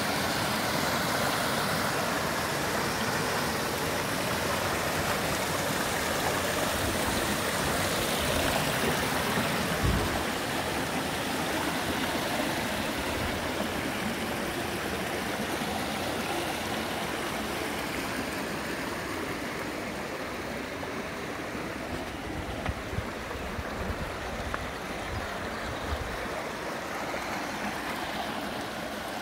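Shallow creek water rushing steadily over small cascades between rock ledges, easing off somewhat in the second half. A few short, low thumps come through, one about a third of the way in and several near the end.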